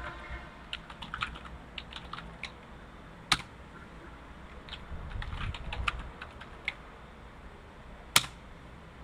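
Typing on a computer keyboard: a run of keystrokes, one much louder key strike about three seconds in, a second run of keystrokes, and another loud strike near the end.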